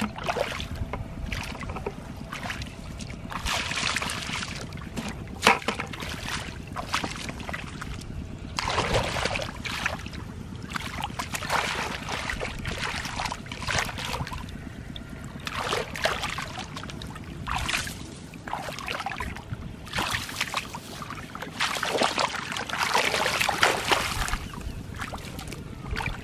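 Shallow muddy water splashing and sloshing in irregular bursts as bare feet wade and hands grope through it, over a steady low wind rumble on the microphone.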